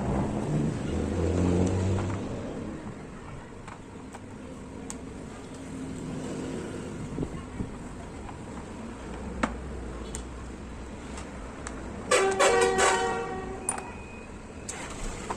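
A vehicle horn honks once, for about a second and a half, near the end. Low background noise and a few light clicks run under it.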